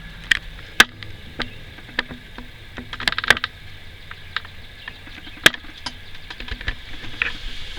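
Scattered light clicks and taps, a dozen or so at irregular spacing, over a faint steady hiss: small hard objects being handled.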